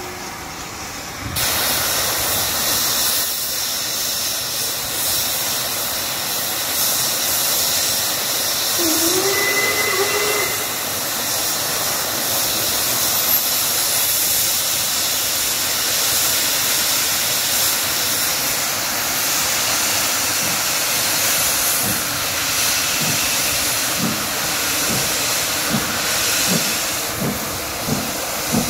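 LMS 8F 2-8-0 steam locomotive hissing loudly as steam escapes, a steady hiss that starts abruptly just after the beginning. Near the end, slow exhaust beats begin and quicken as the locomotive starts to pull away.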